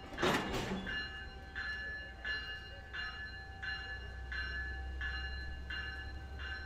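A warning bell ringing steadily, about three strikes every two seconds, over the low rumble of Bombardier bilevel coaches rolling slowly past; a short loud hiss comes just after the start.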